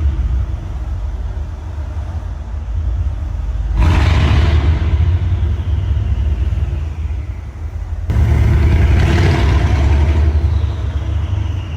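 Mercedes-AMG CLS63 S twin-turbo V8 over a low rumble, opening up suddenly twice, about four and eight seconds in, each time with a rush of sound. Each rush is followed by a high turbo whistle falling slowly in pitch.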